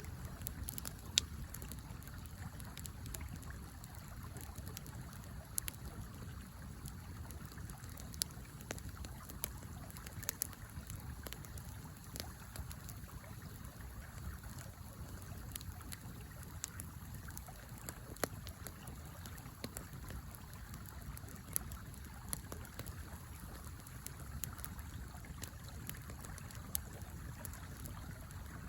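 Small campfire crackling with scattered sharp pops, irregular and roughly one every second or two, over the steady flow of a river.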